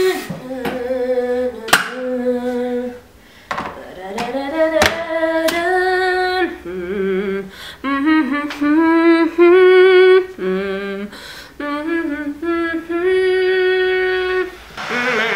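A woman singing a slow melody with long held notes and vibrato, broken by short pauses, with a couple of sharp clicks in the first five seconds.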